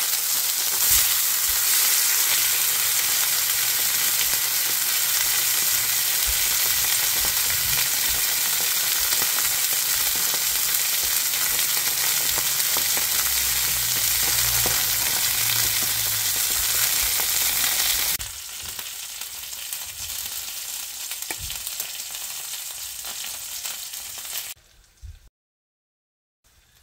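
Salmon fillets sizzling in hot oil in a cast iron skillet, a steady loud frying hiss, with one sharp knock about a second in. The sound drops abruptly about 18 seconds in and cuts off near the end.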